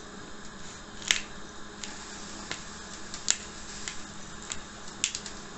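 Hand pepper mill being twisted to grind peppercorns, giving a string of short, sharp clicks at an uneven pace, about one a second.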